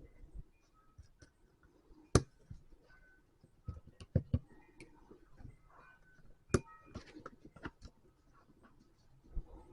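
Lego pieces clicking and clattering as they are handled and snapped together, with a few sharp clicks standing out among softer rattling.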